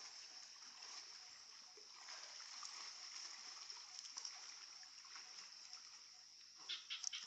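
Water splashing softly as a person swims across a river pool, with a quick cluster of louder splashes near the end. A steady high hiss sits under it throughout.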